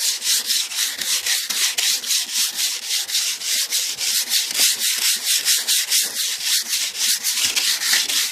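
Sandpaper worked by hand over the painted metal body of a 1988 Cadillac DeVille, in quick, even back-and-forth strokes: dry sanding that scuffs the old paint so new paint will stick.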